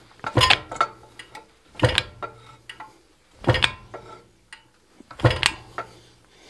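Fly press driving a chisel into a red-hot iron bar: four sharp metallic clanks about every second and a half to two seconds, each ringing briefly, with lighter clinks in between. Each stroke cuts a notch in the bar for a pineapple twist.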